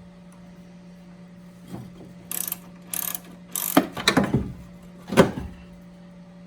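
Half-inch ratchet turning a 14 mm socket in several short rasping strokes, backing off the last nut on top of a front strut mount. Two louder knocks come near the middle and near the end.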